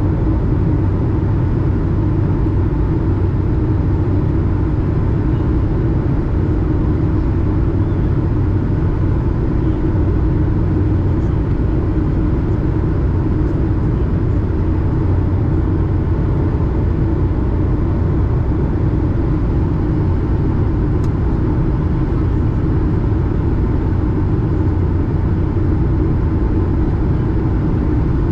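Steady in-cabin noise of an Airbus A220 descending: the even drone of its Pratt & Whitney PW1500G geared turbofan engines and the rush of air past the fuselage, heard from a seat beside the engine, with a faint steady whine over the low hum.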